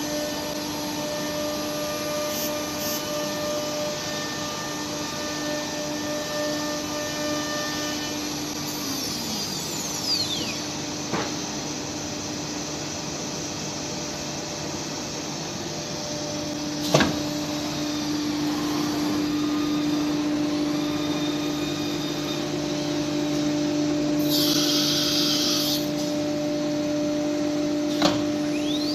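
CNC router with a revolver-type automatic tool changer running with a steady machine hum. About nine seconds in, the spindle's whine falls away as it winds down. Then come several sharp mechanical clicks and knocks, a hiss of compressed air lasting about two seconds, and the spindle whine rising again at the end, the pattern of an automatic tool change.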